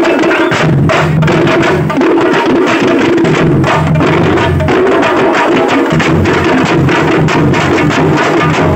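A troupe of drummers beating large round frame drums with sticks together with a barrel drum, in a fast, continuous, dense rhythm.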